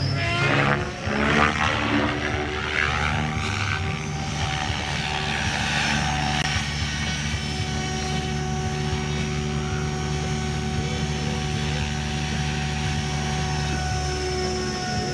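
Tron 7.0 electric RC helicopter in flight, its rotor and motor whine sweeping up and down in pitch for the first few seconds as it manoeuvres, then settling to a steady pitch.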